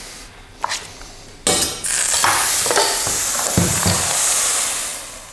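Butter and vegan pancake batter sizzling in a hot frying pan. The sizzle starts suddenly about one and a half seconds in, holds steady with a few low knocks, and eases off near the end.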